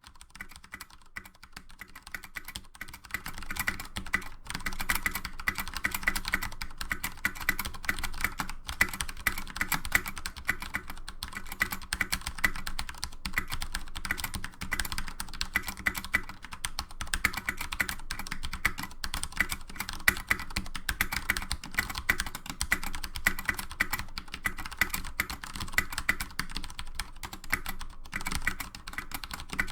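MK2016 full-size mechanical keyboard with tactile Cherry MX Brown switches being typed on continuously and quickly: a dense stream of key clacks, broken by a couple of brief pauses.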